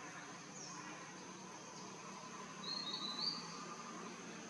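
Forest ambience: birds chirping, with a short run of high chirps about three seconds in the loudest, over a steady high-pitched insect drone.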